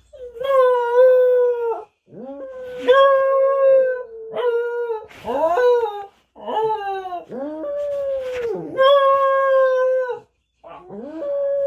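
A husky howling in a run of about eight drawn-out calls, most held steady at one pitch and several starting with a short rising yelp.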